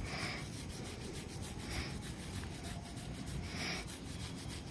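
Chili pepper plant leaves and stems rustling and rubbing as they are picked through by hand. A soft swish comes about every two seconds over a low, rough rumble.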